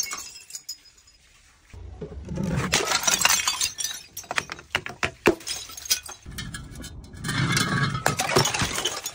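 Liquid-filled glass bottles smashing on concrete stairs, with glass shards clinking and scattering. Two loud crashing stretches, one about two seconds in and one about six seconds in, with a run of sharp clinks between them.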